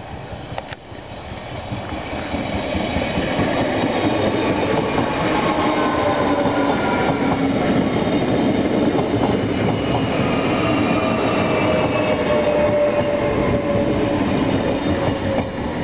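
NS VIRM double-deck electric train passing at close range: a rumble of wheels on rails that grows over the first few seconds and then stays loud and steady, with a few high tones that slowly fall in pitch and occasional sharp clicks.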